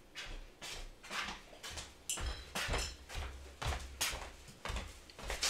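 A dog breathing in quick, noisy puffs, about two a second.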